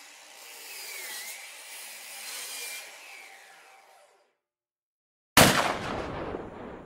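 Sound effects for an animated logo intro: a hissing whoosh with a faint wavering whistle for about four seconds, a second of silence, then one sudden loud gunshot-like bang that fades away.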